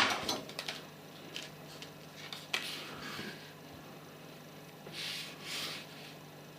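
Small clicks and taps of tweezers and tools handled on a workbench while a surface-mount capacitor is being fitted, with a sharp clatter at the very start and two soft hisses near the end. A faint steady hum runs underneath.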